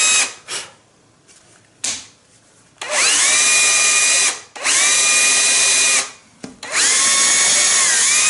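Cordless drill boring a hole through glued-up Baltic birch plywood, run in bursts. A brief run ends just after the start and two short blips follow. Then come three runs of about a second and a half each, the motor's whine rising as it spins up and falling as it stops.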